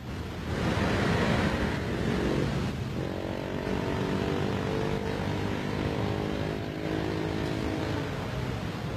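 Motorcycle engines running in street traffic. A wide rushing noise comes first, then a steady engine hum sets in about three seconds in.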